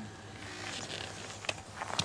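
Rustling and crunching handling noise, like clothing and feet shifting on snow, with a few sharp clicks: one about one and a half seconds in, another near the end.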